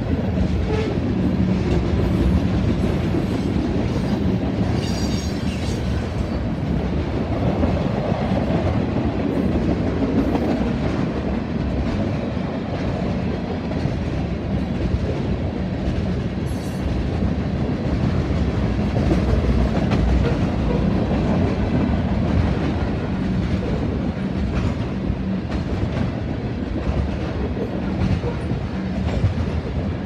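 Freight train tank cars rolling past at speed: a steady rumble of steel wheels on rail, with a clickety-clack as the wheels cross the rail joints.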